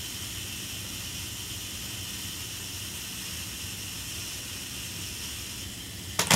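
Minolta XD's self-timer running down with a steady faint hissing buzz, then the shutter firing with a sharp click near the end.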